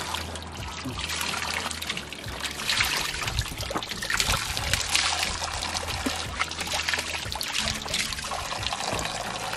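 Water running from a fountain's metal spout and splashing into a stone trough, broken up as hands wash in the stream.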